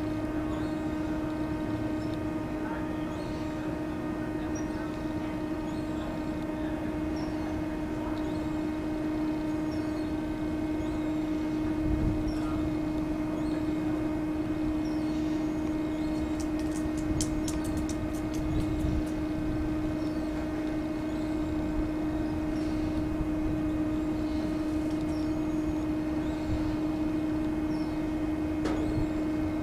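SEPTA commuter train hauled by an AEM-7 electric locomotive approaching slowly. A steady low hum holds one pitch throughout over a low rumble, and a quick run of sharp clicks comes a little past the halfway point.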